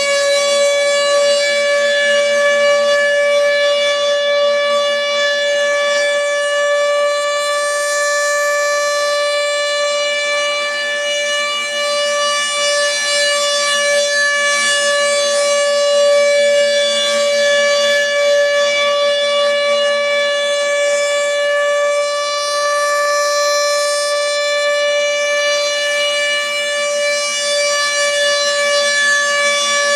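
Federal Signal Thunderbolt 1000 civil defense siren sounding a steady alert tone at full pitch. It holds a single, unchanging note with strong overtones, at a loud and fairly even level.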